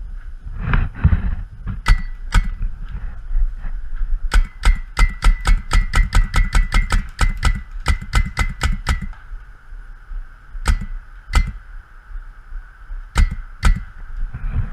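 Paintball marker firing: two shots, then a rapid string of about four to five shots a second for around five seconds, then a few scattered single shots. A low rumble of wind or handling runs underneath.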